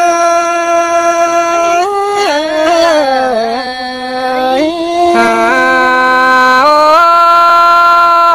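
A solo voice singing a Thái khắp folk song: a long held note, a wavering slide down into a lower note about two seconds in, then a climb back up to another long held note.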